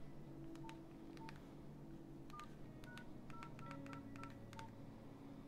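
Nokia 1616-2 keypad tones: about eleven short, faint beeps at a few different pitches, each with a small key click, as keys are pressed to enter the *#0000# service code. The presses come faster in the second half.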